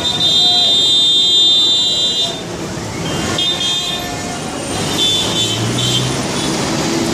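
Heavy city road traffic: a steady rumble of engines and tyres, with high-pitched vehicle horns blaring. One horn is held for about the first two seconds, and shorter horn blasts follow later.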